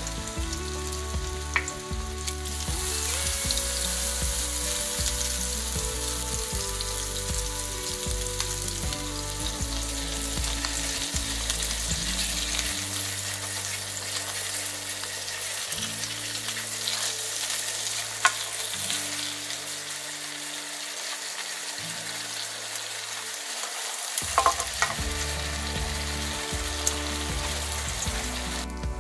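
Pork hamburger patties sizzling in hot oil in a nonstick frying pan, a steady hiss that grows louder about three seconds in. A few sharp clicks break through it.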